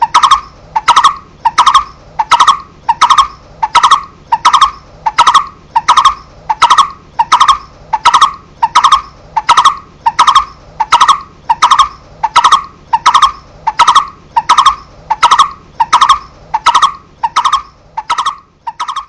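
Barbet (cu rốc) calling: a loud, monotonous 'tuk' note near 1 kHz repeated steadily about one and a half times a second, each note a quick double pulse.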